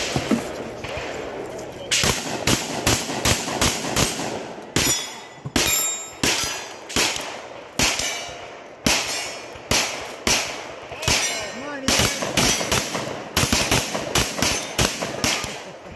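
A rapid string of gunshots, roughly two a second, starting about two seconds in and running on without a pause. Some shots are followed by the ringing clang of steel targets being hit.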